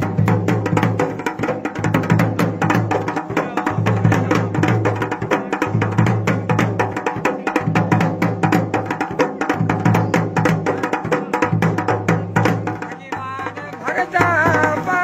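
Dhol and damau, Garhwali folk drums, playing a fast, driving rhythm of dense sharp strokes over a deep pulsing boom. Near the end the drumming briefly thins and a wavering melodic line comes in.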